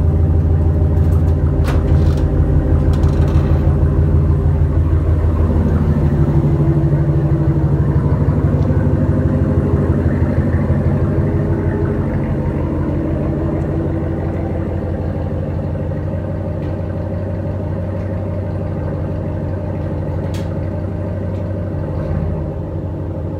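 5.7-litre Hemi V8 of a 2017 Ram 1500 through Carven Competitor mufflers, running at a fast cold-start idle with a deep, steady exhaust rumble. The idle settles down and the level eases off gradually about halfway through.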